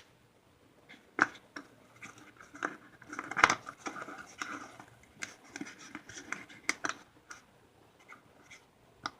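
Scissors snipping and scraping at the thin plastic shell of a ping pong ball half, with irregular sharp clicks and short scratchy rustles.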